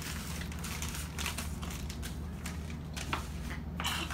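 Paper instant-oatmeal packets crinkling and rustling as they are handled, in irregular crackles with a few sharper ones.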